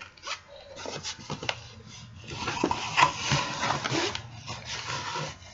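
Cardboard box packed with packaged sample products being handled and lifted: continuous rustling and scraping, loudest in the second half, with scattered light knocks of the items shifting inside.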